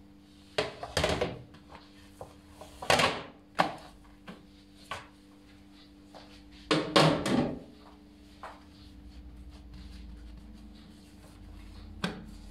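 Kitchen handling sounds: a few knocks and rustles as dough is slid onto a plastic-wrap-covered counter and a plate is carried off and set down, the loudest clatter a bit past halfway. A steady low hum runs underneath.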